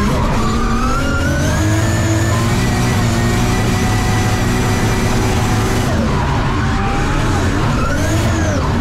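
Drift car's engine revving hard, its pitch rising and falling, with tyres squealing as the car slides sideways through a drift, heard from inside the stripped cabin.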